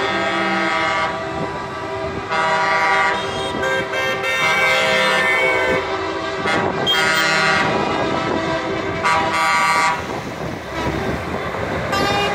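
Truck air horns blowing a series of long, chord-like blasts, one every second or two, as a convoy of trucks drives past, with the trucks' engines running underneath.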